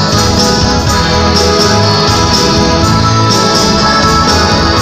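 Instrumental music on an electronic keyboard with an organ sound, playing sustained chords over a steady bass beat.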